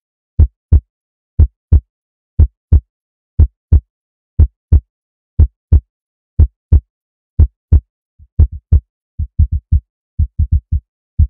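Heartbeat sound effect: a steady lub-dub about once a second. About eight seconds in it turns faster and uneven, with quicker, softer beats.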